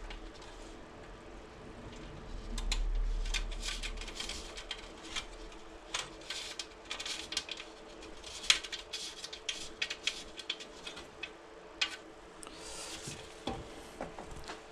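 Steel spokes clicking and clinking against each other and the hub as a spoke is worked through a tightly laced bicycle wheel, with irregular sharp ticks throughout and a low handling thump around two to four seconds in.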